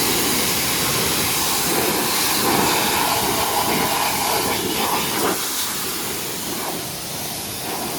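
Pressure washer jet spraying water against a diesel truck: a loud, steady hiss that eases slightly in the second half.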